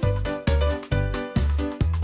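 Background music with a steady bouncy beat, about two bass notes a second under plucked or keyboard melody notes.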